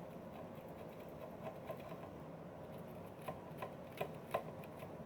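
Faint, irregular scratching and small clicks of a metal screw terminal being scrubbed to clear residue from its threads, with isopropyl alcohol.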